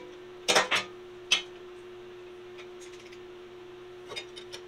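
Hammer striking a freshly bent sheet-metal bracket to finish the bend: three sharp metallic blows in the first second and a half, then a few light taps near the end, over a steady shop hum.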